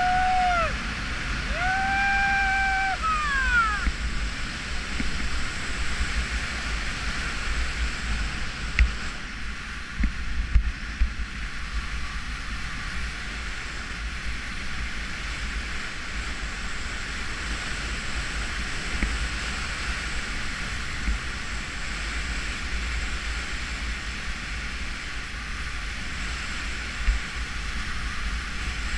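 Wind rushing over the microphone in fast flight under a speed-riding wing: a steady airflow hiss with low buffeting rumble. In the first few seconds a person whoops twice, the second call held and then sliding down; a few sharper thumps of buffeting come about ten seconds in and again near the end.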